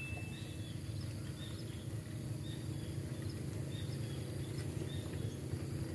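Quiet open-air ambience by the water: a steady low rumble with faint, scattered high chirps. The tail of a ringing ding fades away just after the start.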